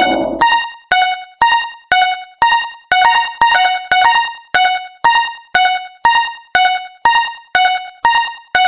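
Japanese railroad crossing warning bell: an electronic chime struck about twice a second, alternating between a higher and a lower tone, each strike ringing out and fading before the next.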